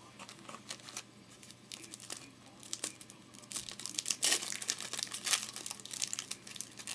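Wrapper of a Topps UFC trading card pack being torn open and crinkled by hand: scattered sharp crackles that grow thicker about halfway through.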